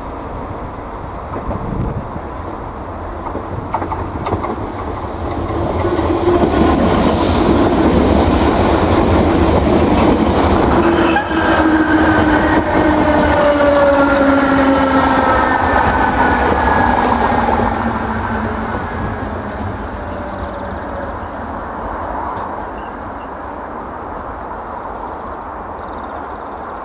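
Irish Rail DART electric multiple unit passing close: rumble and wheel clatter build up, peak as the cars go by, then fade as it pulls away. Through the passing, an electric whine slowly falls in pitch as the train slows for the station.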